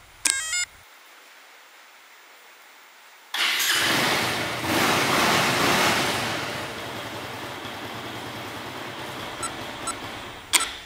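A fingerprint access module gives a short stepped electronic beep tune as the finger is accepted, then a Bajaj Avenger 220's single-cylinder engine is started on the electric starter about three seconds later. It runs fast for a couple of seconds and settles into a steady idle. Near the end a short beep sounds as the sensor is touched again.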